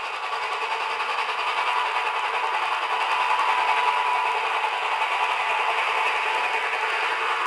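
Nickel Plate Road steam locomotive passing at speed with a freight train, working hard: a steady rush of exhaust mixed with the clatter and rattle of running gear and wheels, growing louder over the first few seconds.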